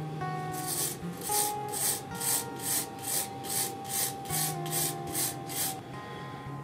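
A small screw from a Stanley No. 1 hand plane is scrubbed back and forth against a brass wire brush to clean off rust and grime. It makes a quick, even run of scratchy strokes, about two and a half a second, which stops about a second before the end.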